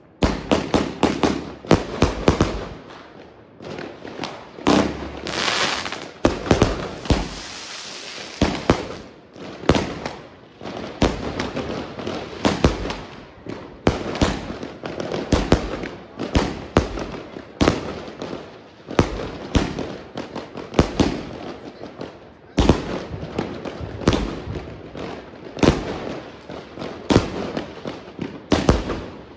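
Rubro Event Immortal Gold firework cake firing a long series of shots, with sharp bangs following one another about once or twice a second. About a third of the way in a stretch of hissing lasts a few seconds between the bangs.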